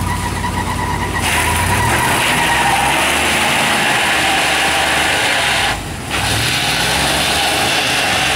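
Land Rover Discovery engine revving under load as the 4x4 crawls over boulders, with a loud rushing hiss from about a second in. The sound dips briefly about six seconds in, then the revs climb again.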